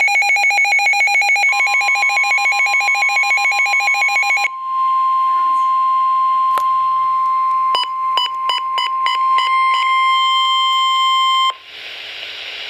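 NOAA Weather Radio alert: rapid pulsing electronic alarm beeps for the first few seconds, overlapped from about a second and a half in by the steady 1050 Hz warning alarm tone, which holds for about ten seconds with a few short beeps near the middle, then cuts off into radio hiss.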